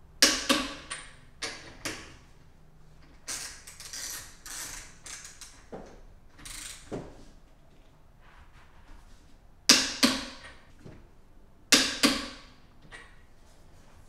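A click-type torque wrench tightening wheel lug nuts gives sharp clicks, in quick groups near the start and in pairs about ten and twelve seconds in. Each click means a lug nut has reached the set torque of 80 foot-pounds. Softer metallic clinks come between the clicks.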